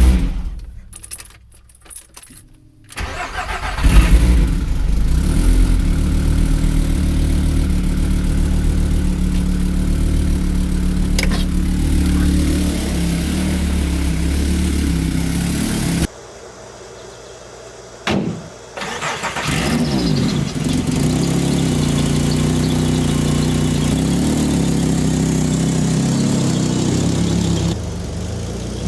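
VW 07K 2.5-litre inline five-cylinder engine, swapped into a Porsche 944, running steadily just after its first start in over a year. After a quiet first few seconds it comes in loudly. A little past halfway it cuts out for about two seconds, then runs again.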